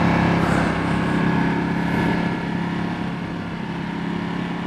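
Ducati Multistrada 1200S V-twin engine running steadily at a light cruise, getting a little quieter over the second half as the bike eases off, with wind rushing over the microphone.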